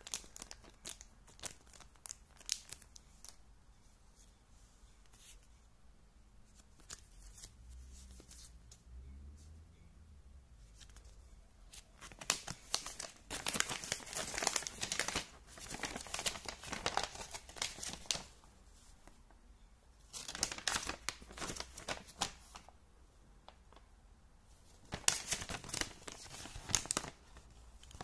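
Paper instruction leaflet being unfolded and handled, with loud rustling and crinkling in three bursts through the second half. Before that, light crinkles of a small plastic zip bag being handled.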